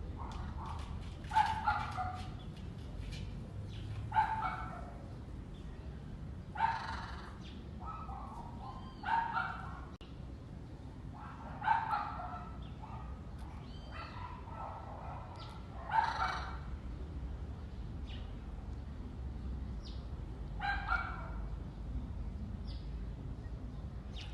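An animal calling: about seven short, loud calls at irregular gaps of two to five seconds, over a steady low background hum.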